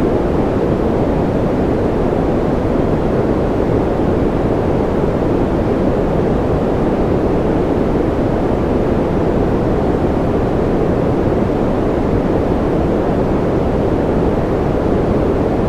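Steady ambient noise track: an even, unchanging hiss weighted low and deep, with little high-frequency sizzle and no separate drops or events.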